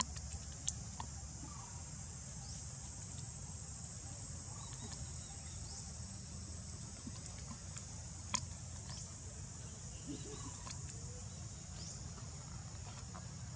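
Steady high-pitched insect chorus with short rising chirps every couple of seconds, over a low rumble. Two sharp clicks, about a second in and again past the middle.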